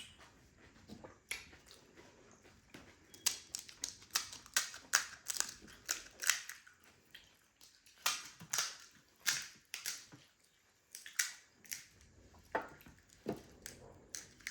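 Crisp, hollow pani puri shells crunching in quick, irregular cracks, thickest through the middle and thinning out near the end.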